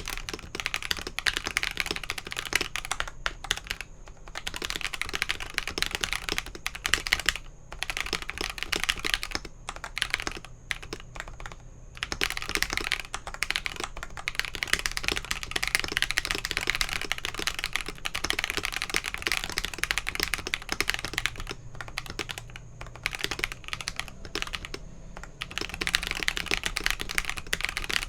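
Continuous fast typing on a gasket-mounted KalBro 75% mechanical keyboard with lubed Akko Radiant Red linear switches, an aluminium plate, full foam and Holee-modded stabilizers: dense rapid key strokes with a few brief pauses.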